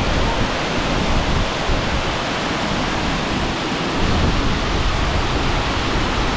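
Waterfall's steady roar of falling water, heard from about 50 m away, close enough that its spray reaches the listener.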